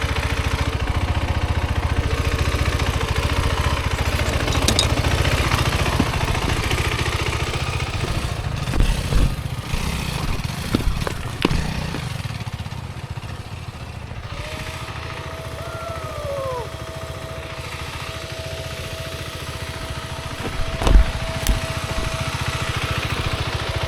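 Single-cylinder dual-sport motorcycle engine running on an off-road ride, easing off partway through. Sharp knocks and thumps come in around the middle and again near the end. A faint steady tone is heard in the second half.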